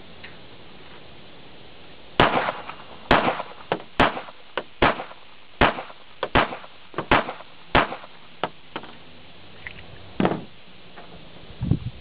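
Glock 42 .380 ACP pistol firing eight shots in steady succession, about one every 0.8 seconds, emptying a seven-round magazine plus one in the chamber. Two softer, duller sounds follow near the end.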